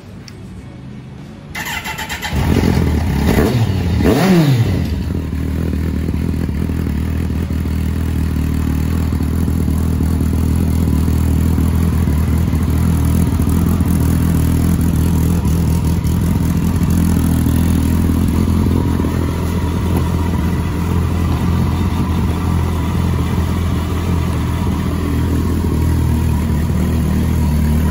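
Kawasaki GTR1400's inline-four engine starting through a BlackWidow slip-on silencer with its baffle fitted. It catches about two seconds in, revs up briefly and falls back, then settles into a steady idle.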